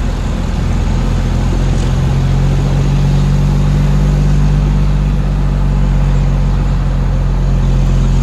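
Kenworth truck's heavy diesel engine droning steadily at low revs as it pulls uphill, heard from inside the cab.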